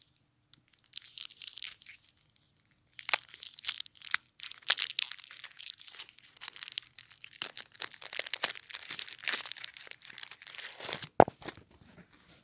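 A Kinder Maxi chocolate bar's plastic wrapper being torn open and crinkled by hand, in irregular crackling rustles that start faintly and get dense from about three seconds in. A single sharp click, the loudest sound, comes near the end.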